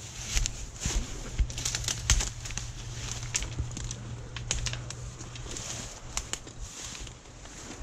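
Footsteps through dense brush and dry leaf litter, with twigs snapping and branches rustling against clothing in a run of sharp irregular clicks.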